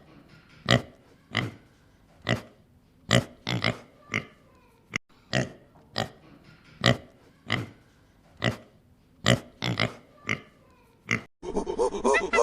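Pig grunting over and over in short grunts, just under a second apart. Near the end a louder, denser sound cuts in.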